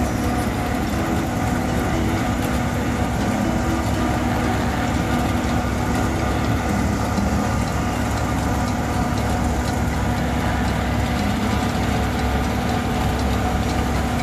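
Case IH combine harvester's diesel engine running steadily, a constant hum with several steady tones.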